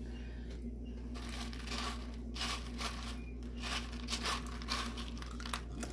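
Hands rummaging through dry Lucky Charms cereal in a plastic bowl, picking out marshmallows: an uneven rustle of loose cereal pieces with scattered small clicks, over a faint steady hum.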